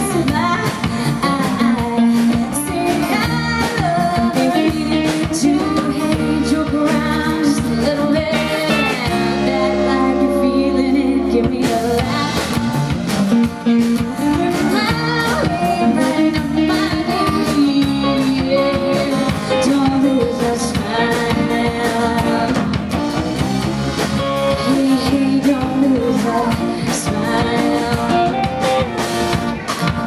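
Live band playing a song: a woman singing over acoustic guitar, electric bass and electric guitar. About nine seconds in the voice drops out for a few seconds over a held chord.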